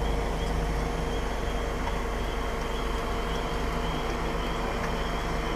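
Steady road and engine noise of a moving car, a continuous low rumble with a faint even hum over it.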